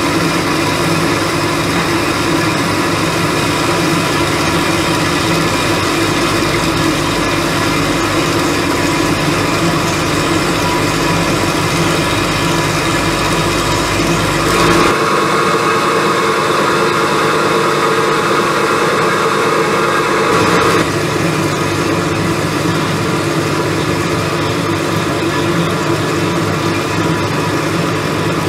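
Behringer HBP 360 A automatic bandsaw running with a steady mechanical hum. About halfway through, a higher, slightly louder tone joins for some six seconds and then drops away.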